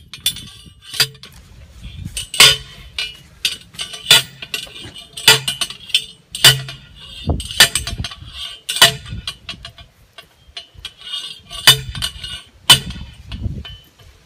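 Manual post driver hammering a grounding rod into the ground for an electric fence: sharp metallic clanks with a ringing tail, about one a second, with a short break about ten seconds in.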